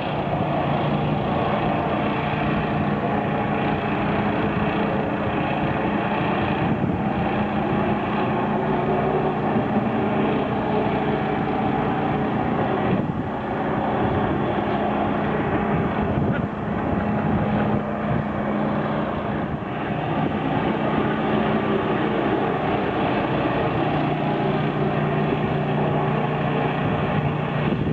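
The 10 hp air-cooled engine of a small KJet 134 water-jet boat running steadily under way, with only slight rises and falls in its note.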